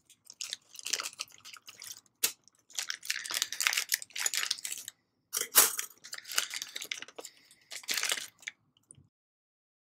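Crinkling and rustling of a small plastic bag of screws and nuts being handled and opened, in irregular bursts with a couple of sharp clicks. It stops about nine seconds in.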